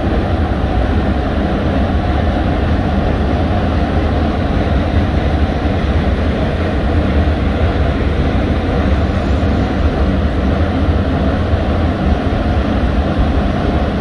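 Waterfall pouring into its plunge pool: a loud, steady rush of water, heaviest in the low end.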